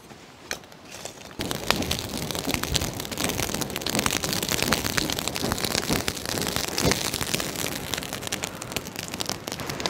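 Lump charcoal pile being fanned with a metal plate as it catches: rushing air with dense crackling and popping of the kindling coals, starting about a second and a half in after a few light clicks of charcoal pieces being set down.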